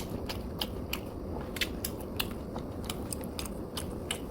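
A person chewing a mouthful of food, with irregular small clicks and soft crunches from the mouth.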